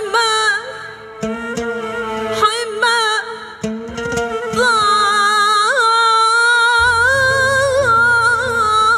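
A woman singing an Arabic song in the classical style, with held notes ornamented by wavering melismas, accompanied by oud, violin, keyboard and hand drum. A steady low bass comes in near the end.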